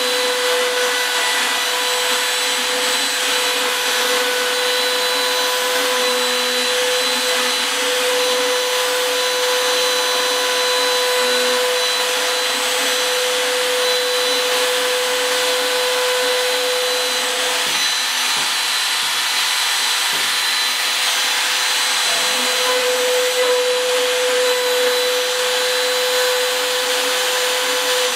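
Small trim router with a half-inch straight bit running at speed, milling cured fiberglass-reinforced epoxy and particle board flush: a steady high-pitched whine that changes tone for a few seconds about two-thirds of the way through as the bit cuts.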